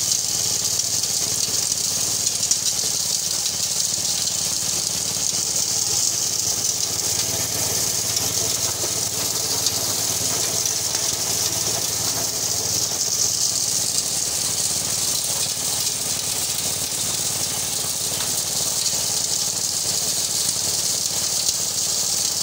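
Engine-driven maize sheller-thresher running under load, shelling cobs: a steady engine hum under a constant high rattle and rush of cobs and grain through the drum.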